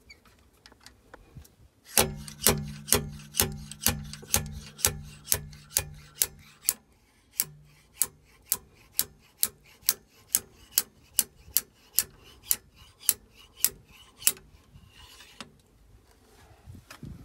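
Small slide hammer on an M8 adapter threaded into a rusted-in dipstick tube stub in an '02 Mercruiser 3.0 engine block, its weight struck against the stop in light, even blows about twice a second for about twelve seconds. Each blow is a sharp clack with a low ring behind the early ones. The blows are kept gentle to work the seized stub loose without stripping the freshly cut thread.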